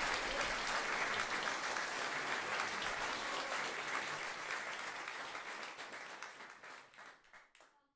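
Audience applauding, the clapping fading and thinning to a few scattered claps near the end.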